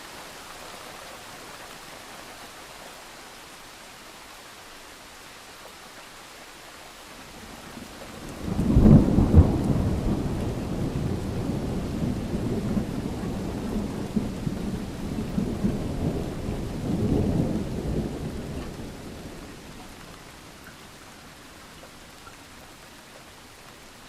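Steady rain hissing, with a clap of thunder breaking suddenly about a third of the way in and rolling on in low rumbling swells for about ten seconds before it fades back under the rain.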